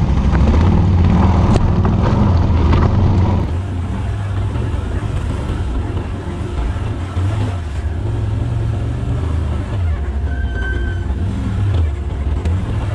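ATV engines running at low trail speed, a steady low drone, with knocks and rattles over rough ground in the first few seconds. About three and a half seconds in the sound drops to a quieter, steady engine hum.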